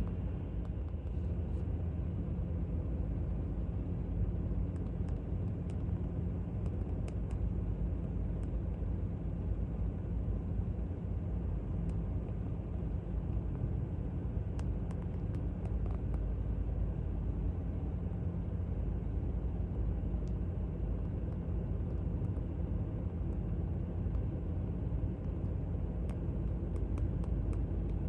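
Steady low rumble of distant airport traffic, holding an even level without rising or fading.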